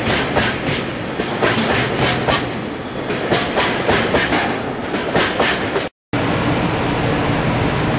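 Freight train of oil tank wagons rolling past, the wheels clicking over the rail joints in a steady clickety-clack. About three-quarters of the way in, the sound cuts out for a moment and comes back as a closer, steadier rumble of a moving tank wagon with fewer clicks.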